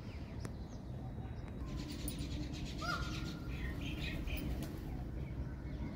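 Scattered bird calls and short chirps, most of them between about two and five seconds in, over a steady low background rumble.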